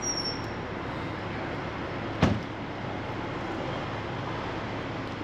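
Steady outdoor background noise with a single sharp knock a little over two seconds in.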